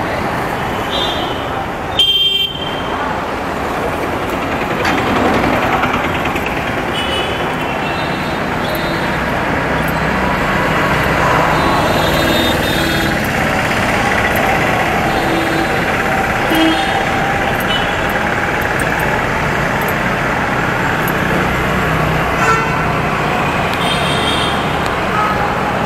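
Busy city road traffic: engines of motorbikes and cars passing steadily, with short vehicle horn toots several times and a sudden loud burst about two seconds in.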